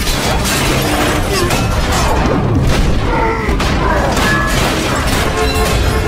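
Action-film fight soundtrack: a steady run of heavy crashes, booms and smashing debris over a low rumble, with a dramatic score underneath.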